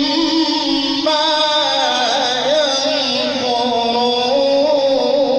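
A male Quran reciter in the melodic mujawwad style holds one long melismatic note without a break. The pitch steps up about a second in, then winds through small wavering ornaments.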